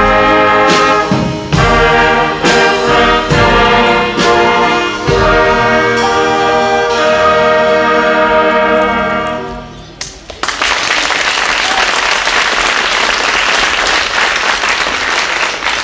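Youth brass ensemble of trumpets and trombones playing the closing bars of a piece, ending on a held final chord about ten seconds in. The audience then applauds.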